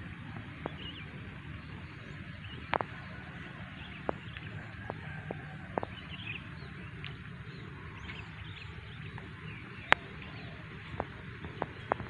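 Open rice-field ambience: a steady low rumble with faint, scattered bird chirps and a dozen or so sharp clicks, the loudest about ten seconds in.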